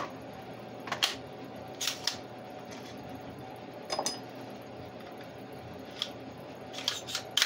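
Sharp plastic-and-metal clicks and clacks from a Ryobi cordless brad nailer being reloaded with a strip of shorter brads, the magazine pulled open and snapped shut. There are about eight scattered clicks, some in quick pairs, with a brief faint ring at one of them.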